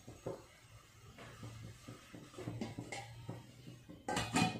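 Stainless steel lid set down onto a nonstick pan of upma, a short metallic clatter about four seconds in, after a few faint light taps of cookware.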